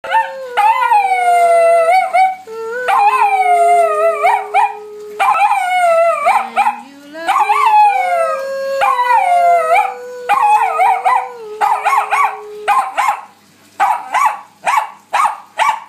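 Bichon Frise howling in long drawn-out howls, each a couple of seconds long and falling in pitch, then breaking into a quick run of short yips near the end.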